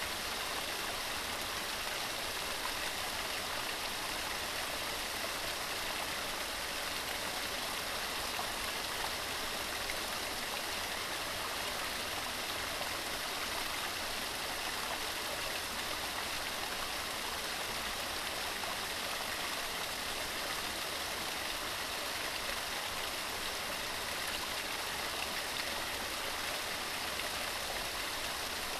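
Waterfall: a steady, unbroken rush of falling water, more hiss than rumble.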